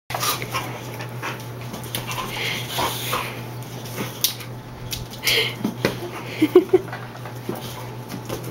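Two boxer dogs play-fighting over soap bubbles: scuffling with many sharp clicks and knocks, and a few short whimpers about six and a half seconds in.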